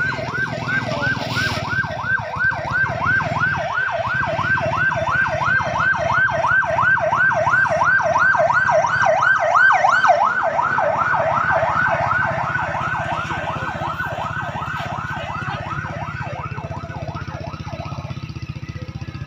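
Police escort car siren on a fast yelp, its pitch rising and falling about three times a second. It grows louder to a peak about ten seconds in as it passes, then fades away. A low rumble of vehicle engines runs underneath.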